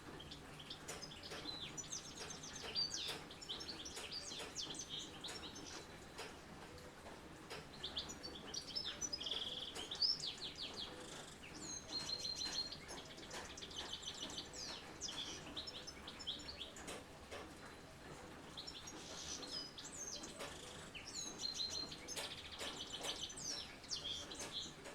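Several songbirds singing and chirping, with quick trilled and sweeping phrases overlapping throughout, over a faint steady hiss.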